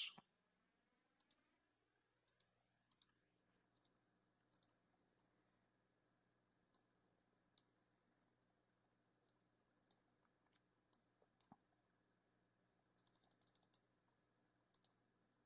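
Faint computer mouse and keyboard clicks, spaced about a second apart and some in quick pairs, with a fast run of clicks about 13 seconds in.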